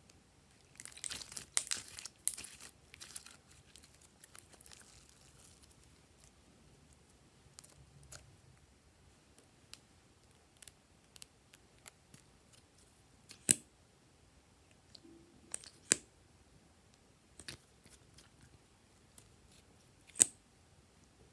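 Handling noise from plastic lip gloss tubes with rhinestone caps: a few seconds of crinkly rustling near the start, then scattered sharp plastic clicks as the tubes, caps and applicator wand are handled.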